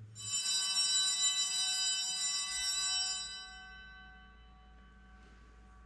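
Altar bell rung at the elevation of the chalice after the consecration. It starts sharply, rings with many high bright tones, and fades away after about three and a half seconds.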